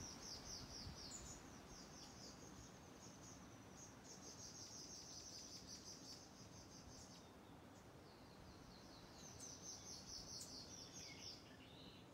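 Faint, high-pitched insect chirring in several rapid trains, each lasting one to three seconds, over quiet forest background. A short falling bird chirp comes near the end.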